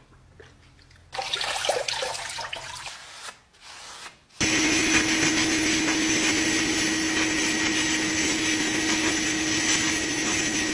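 Wet splashing and dripping as parts are lifted out of a rust-remover bath. Then, about four seconds in, a sandblasting cabinet starts: a steady, loud hiss of compressed air and abrasive grit striking the sole of an old iron, with a steady hum under it.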